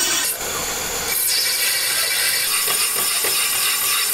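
Metal lathe turning a cast-iron brake disc, with a steady, high scraping hiss of metal being worked on the spinning disc. The sound dips briefly about a third of a second in.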